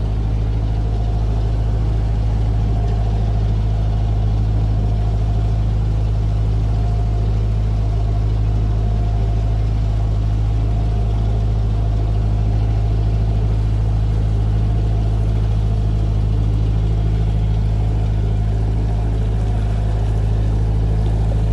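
Narrowboat's inboard diesel engine running steadily at a slow cruising pace, a constant low drone with no change in revs.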